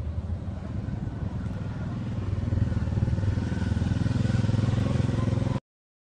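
A steady engine-like drone that grows louder a little over two seconds in, then cuts off suddenly near the end.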